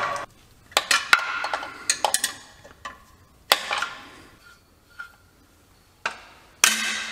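Metal hand tools clinking and clanking against metal under a truck: several sharp, irregular metallic knocks, each with a brief ring, with quiet gaps between them.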